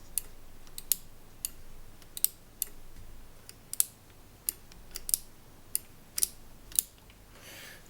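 Mechanical switch in a Yamaha CR-1000 receiver's front-panel controls being worked back and forth: a series of sharp, irregular clicks, about two a second. This is a test of whether the switch now snaps over properly after its contact bracket was bent.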